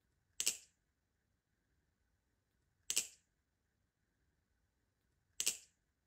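Three sharp metallic clacks, evenly spaced about two and a half seconds apart, from a Squid Industries Krake Raken V2.5 balisong trainer as its handles and trainer blade snap together at each pass of a repeated flipping trick.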